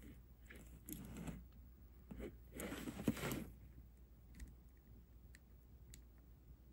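Faint handling sounds of a glass-and-stone bead necklace: soft rustling and beads clicking together, with one sharper click a little after three seconds and a few light ticks after it.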